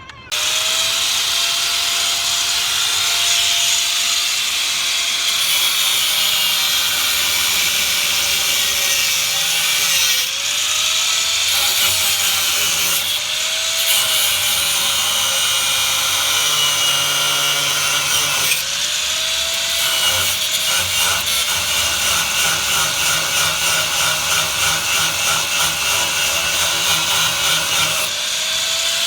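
Power tool running continuously against a workpiece, its motor pitch dipping briefly several times as it is loaded, with rhythmic rubbing strokes near the end.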